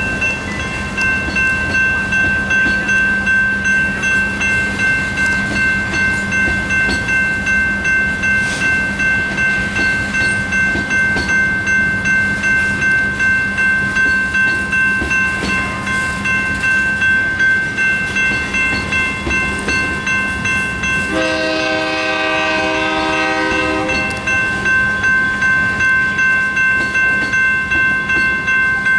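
Railroad crossing's electronic bells (General Signals Type 2 and Safetran Type 1) ringing in a rapid, steady rhythm over the rumble of a slow freight train of tank cars rolling through. A locomotive horn sounds for about three seconds, roughly three-quarters of the way in.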